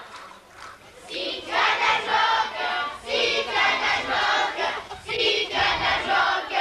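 A group of young children singing together in short phrases, starting about a second in after a brief lull.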